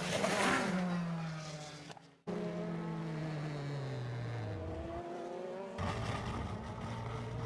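A1GP race cars' V8 engines: a note falling as a car slows, cut off briefly about two seconds in, then another engine note sliding steadily down in pitch as the car decelerates, and a new engine note starting near the end.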